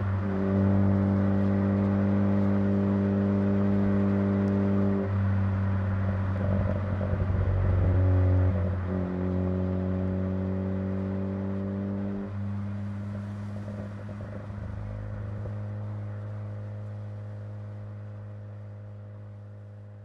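Car engine and exhaust droning at a steady cruise, its pitch holding for several seconds at a time and shifting a few times, fading out over the second half.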